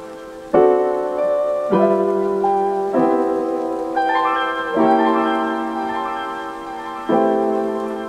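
Background piano music: slow chords, each struck and left to ring and fade, a new one every one to two seconds.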